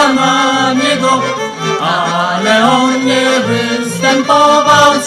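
Background music with a singing voice over a steady, repeating bass line.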